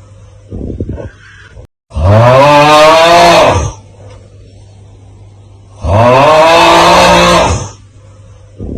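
The 'Aauuggh' meme sound: a man's loud, drawn-out 'AAUUGGH' yell, heard twice about four seconds apart, each lasting nearly two seconds with the pitch rising and then falling. Between the yells come a short, quieter rasping sound and a steady low hum.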